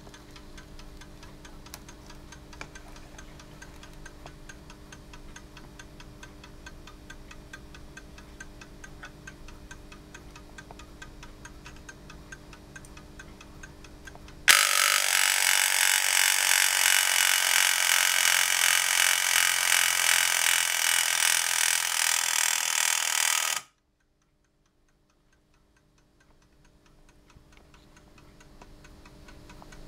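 Gustav Becker pendulum alarm clock ticking steadily. About halfway through, its alarm goes off and rings loudly for about nine seconds, then cuts off suddenly. Faint ticking comes back near the end.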